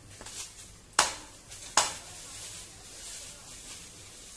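Two sharp knocks, about a second in and again just under a second later, over a steady background hiss.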